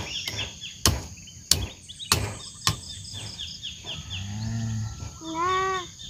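Four sharp knocks in the first three seconds, like blows of a blade chopping, over a steady chirring chorus of insects. About four seconds in comes a short low call, then near the end a rising call.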